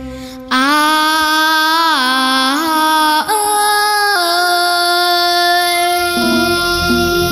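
A young girl singing long held notes into a microphone over a recorded backing track, the pitch stepping between notes every second or so. The backing track's accompaniment and bass come up near the end.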